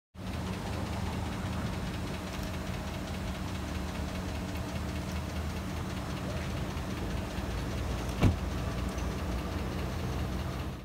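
A vehicle engine idling with a steady low hum, and a single sharp knock about eight seconds in.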